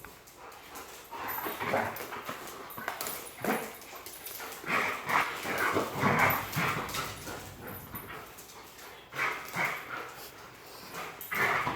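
Belgian Malinois vocalizing in play: a string of short, irregular barks and whines during a bout of zoomies.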